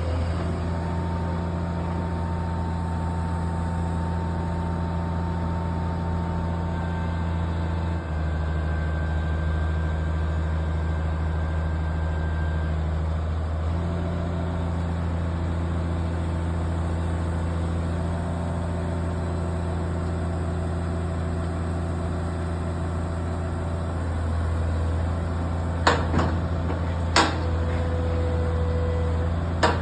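Caterpillar 345C L high-reach excavator's diesel engine running steadily with a low hum and a faint whine, changing slightly in pitch a couple of times. A few sharp knocks come near the end.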